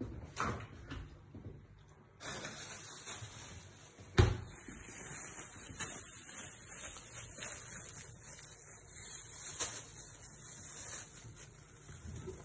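Kitchen handling noises while cooking: a few knocks and clatters, the loudest a single sharp knock about four seconds in, over a steady hiss that sets in about two seconds in.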